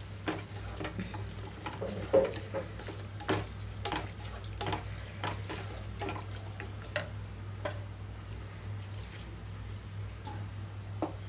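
Wooden spatula stirring snake gourd pieces in milk in a pan: irregular liquid scraping and sloshing strokes, several a second, over a steady low hum.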